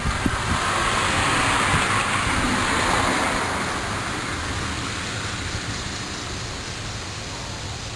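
A vehicle passing on the street, its tyre noise swelling over the first couple of seconds and then slowly fading away.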